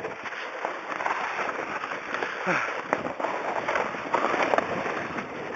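Sled sliding down a snowy hill: a steady, crackling scrape of snow under the sled, with many small ticks and clicks.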